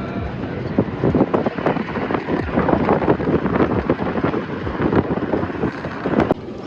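Wind buffeting the microphone of a moving vehicle, a dense irregular crackling and thumping over the vehicle's running noise, which drops off suddenly near the end.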